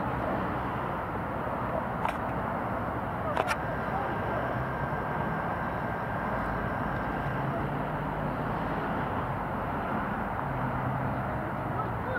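Steady outdoor background noise at a sports field, with faint distant voices and two sharp knocks, about two and three and a half seconds in.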